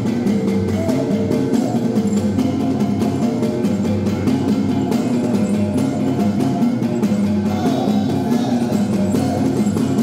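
Percussion music for the Murut magunatip bamboo-pole dance: fast, even wooden clacks over a steady ringing of gongs.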